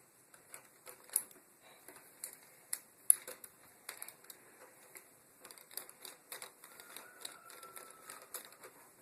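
Faint, irregular light clicks and taps of a screwdriver and wire on an electrical outlet's terminal screws, as the bare ground wire is hooked to the outlet's green ground screw and tightened.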